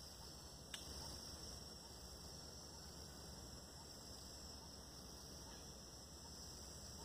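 Near silence: faint steady outdoor ambience with a high hiss, and a single brief click just under a second in.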